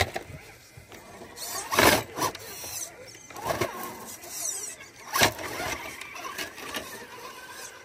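Scale RC crawler truck's electric motor and gears whining in about four short bursts as it is driven back and forth on the course.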